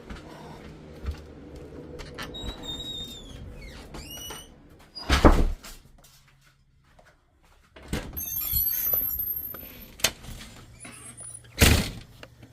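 A door squeaking on its hinges and banging shut, with several sharp thumps and high squeaks as someone goes out with a chair and bucket.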